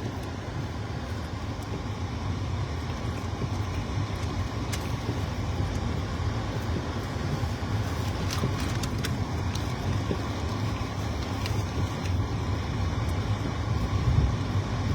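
Steady low rumble of a car running, heard from inside the cabin, with a few faint clicks.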